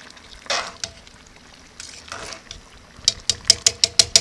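Metal tongs stirring chicken pieces in a cast-iron Dutch oven, a couple of short swishes, then from about three seconds in a fast run of sharp metallic clicks from the tongs, about seven a second.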